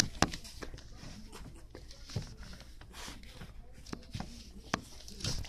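Close handling noise from a dog and a hand petting it right against the phone: irregular clicks, taps and rustling.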